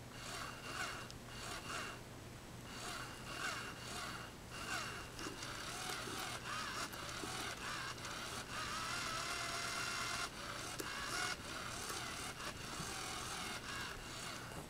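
Motorised cat toy running, its motor whirring in uneven spurts as it swings its wire wand arm, over a steady low hum.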